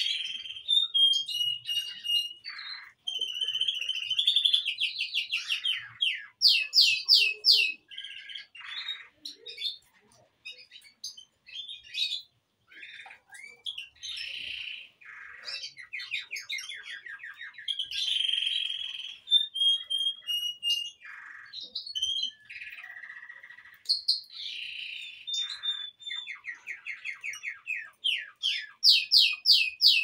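Birds singing and chirping: a near-continuous, varied run of fast trills, buzzy chirps and short whistled notes, broken by brief pauses.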